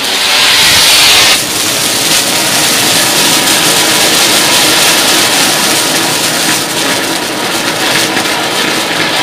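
Gudiya-brand red Matka flowerpot, a ground fountain firework, burning and spraying sparks with a loud, steady rushing hiss. It is loudest for the first second and a half, then settles to an even spray.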